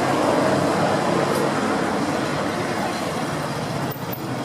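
Steady rumble of vehicle and traffic noise, with a low engine-like hum.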